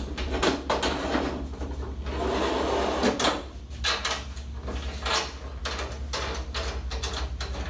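Clicks, knocks and rattles of a projector being handled on a universal ceiling projector mount, with a scraping slide about two seconds in that lasts about a second, as the projector is pushed and set on the mount plate.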